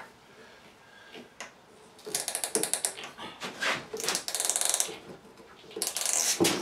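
Hand ratchet wrench clicking in three short runs of rapid clicks: about two seconds in, about four seconds in, and near the end.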